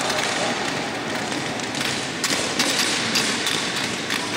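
Skate wheels rolling on a hard floor, a steady hiss with scattered taps and clacks.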